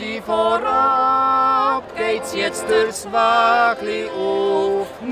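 A woman's and a man's voice singing a Swiss yodel song together in two-part harmony, in phrases of held notes with short breaths between. A Schwyzerörgeli (Swiss button accordion) softly holds chords underneath.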